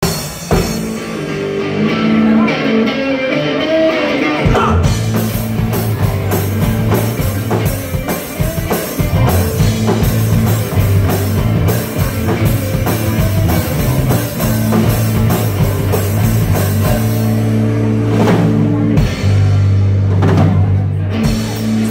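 Live rock band playing an instrumental intro on electric guitars, bass guitar and drum kit; the low bass notes and full beat come in about four and a half seconds in.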